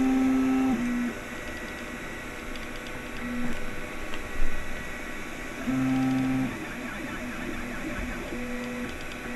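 Anet A8 3D printer printing. Its stepper motors sing in short steady tones as the print head moves, changing pitch from move to move, over a steady fan hum. The tones are loudest in the first second and again about six seconds in.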